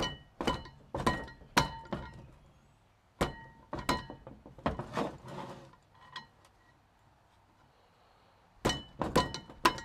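Small hammer tapping a flat-blade screwdriver to drive out the inner oil seal of a rear wheel hub and brake rotor. Each hit is a sharp metallic clink, and the rotor rings briefly after it. About a dozen hits come in uneven groups, with a pause of about two seconds before a quick run of hits near the end.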